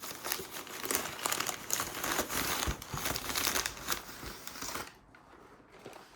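Parcel packaging crinkling and tearing as it is unwrapped by hand, a dense run of quick crackles that stops about five seconds in.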